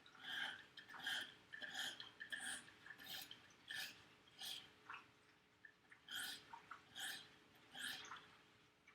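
140-grit stone on a KME guided sharpening system stroked back and forth across the blade edge of a Victorinox Huntsman pocketknife. The grinding strokes come in an even rhythm of about one and a half a second, with a short pause a little past the middle.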